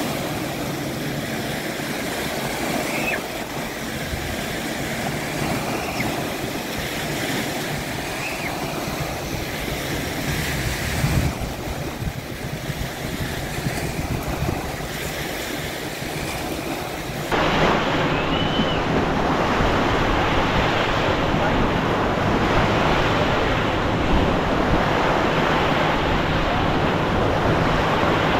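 Steady rushing noise of wind on the microphone and moving water. It turns abruptly louder and coarser about two-thirds of the way through.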